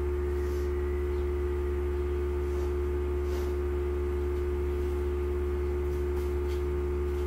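Steady electrical hum: a constant low drone with a few steady higher tones above it, unchanging throughout.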